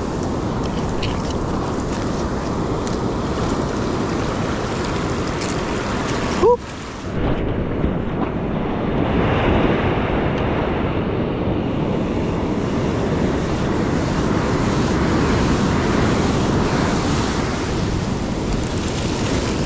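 Ocean surf washing and breaking steadily, with wind on the microphone. A brief rising squeak comes about six and a half seconds in.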